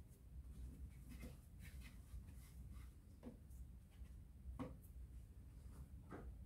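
Near silence with a low steady hum, broken by about five faint, short scrapes and soft knocks of handling.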